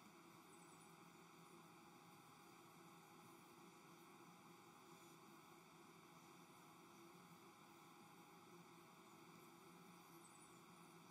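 Near silence: faint steady hiss of the recording's background noise.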